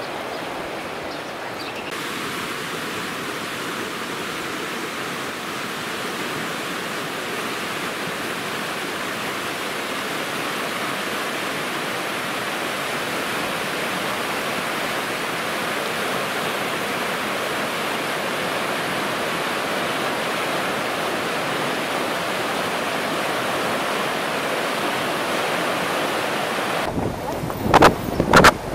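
Rushing water, a steady even hiss. Near the end the sound changes and a few loud bumps cut in.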